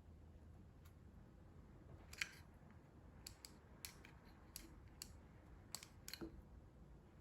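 Faint scattered clicks and taps of multimeter probes and plastic connector pins being handled, about ten small clicks with the sharpest about two seconds in and a quick cluster near the end, over a low background hum.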